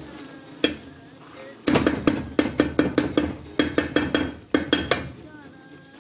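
A metal spatula knocking and scraping against an iron pan while stirring thick apple halwa: one clack about half a second in, then a fast run of sharp metal clacks, several a second, from about two seconds in until about five seconds in. The halwa has cooked down far enough to come away from the pan.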